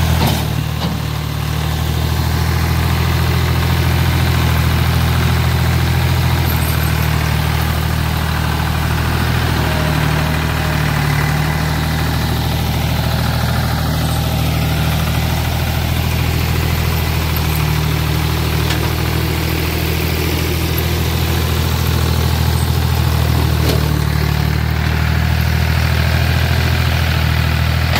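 Ford 3000 tractor's three-cylinder engine running steadily under the front loader, a low even engine hum that dips briefly about a second in.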